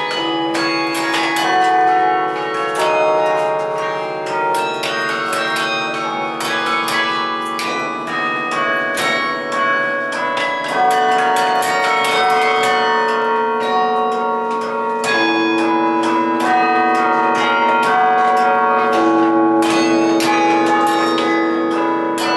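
Carillon bells played from the baton keyboard: quick runs of struck notes over lower bells that ring on for several seconds.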